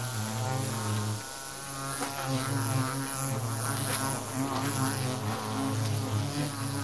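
Flying insects buzzing close by, a steady wingbeat hum that wavers in pitch as they move, over a faint high hiss.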